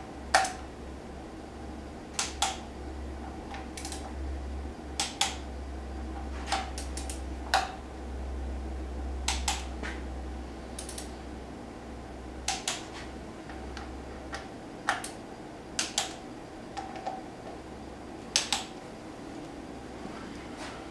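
Hand tools clicking against metal while the oil scavenge pumps are fastened to a Porsche Cayman S engine's cylinder head: sharp, irregular clicks, single or in quick pairs, each with a short metallic ring, over a steady low hum that stops about two-thirds of the way through.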